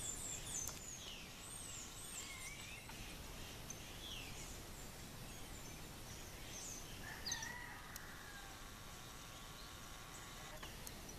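Several wild birds calling: quick high chirps and short sweeping whistles, with a longer, lower call starting about seven seconds in.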